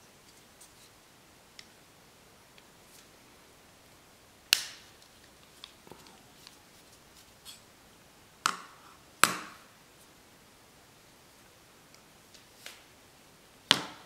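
Sharp clicks and knocks of the Extrema Ratio BD4 Lucky folding knife's metal parts and a small screwdriver being handled during disassembly: four louder knocks, one about four and a half seconds in, two close together around eight and a half and nine seconds, and one near the end, with fainter ticks between.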